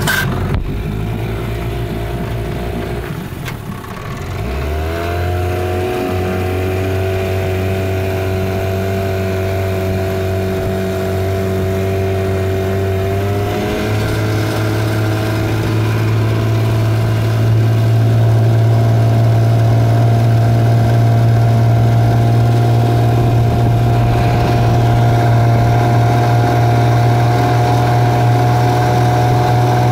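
1951 Evinrude Fleetwin 7.5 hp two-cylinder two-stroke outboard motor running under way. Its pitch steps up about four seconds in and again about halfway through as it speeds up, then it runs steadily at the higher speed.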